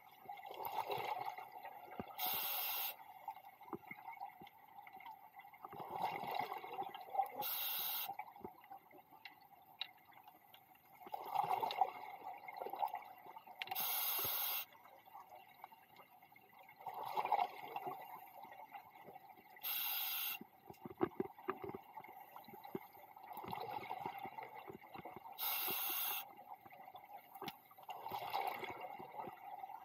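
Scuba diver breathing through a regulator underwater, a steady cycle roughly every five to six seconds. Each breath has a short hiss of the inhale through the demand valve and a bubbling, gurgling rush of the exhaled bubbles.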